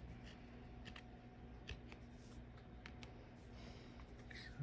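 Faint rustling and light clicks of trading cards being handled and flipped over, a few soft ticks spread through, over a low steady hum.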